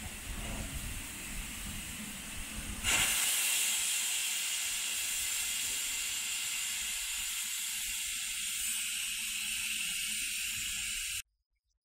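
Steam venting with a steady, loud hiss from low down on BR Standard Class 9F steam locomotive 92214 as it stands in steam. The hiss jumps up suddenly about three seconds in and cuts off abruptly near the end.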